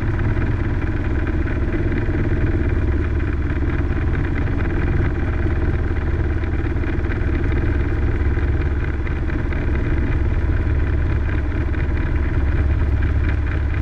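Robinson R22 helicopter heard from inside the cockpit: the steady drone of its piston engine and two-bladed main rotor as it slows on approach to a landing spot.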